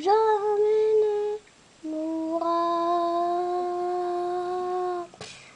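A young boy's voice singing two long, held notes without words, the second lower and longer than the first, in imitation of a pirates' song. A brief hiss follows near the end.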